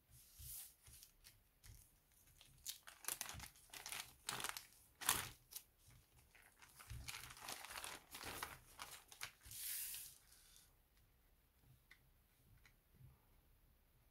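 Plastic courier satchel being torn open and crinkled as it is handled, in a string of irregular rustling bursts, the sharpest about five seconds in. It settles to a few light taps near the end.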